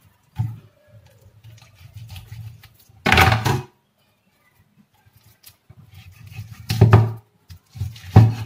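Meat cleaver chopping a piece of chicken on a wooden chopping board: three heavy chops a few seconds apart, the last two close together, with quieter knife cutting and scraping against the board before them.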